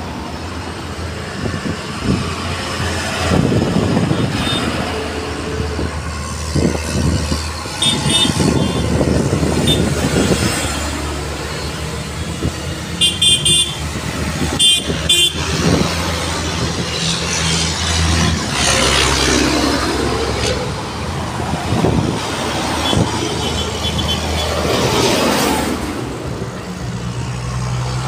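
Farm tractors, John Deeres and a New Holland, driving past one after another, their diesel engines getting louder and fading as each one passes. Short horn toots sound several times, clustered in quick beeps around the middle.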